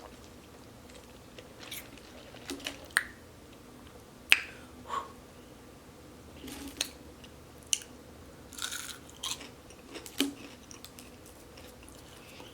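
Close-miked chewing and eating mouth sounds: scattered wet smacks and clicks, the sharpest about four seconds in.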